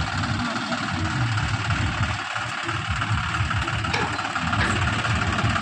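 Diesel engine of farm machinery running steadily at idle, with one brief click about four seconds in.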